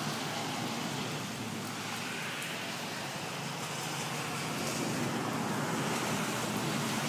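Steady hiss of rain mixed with traffic swishing along a wet road, growing slightly louder past the middle.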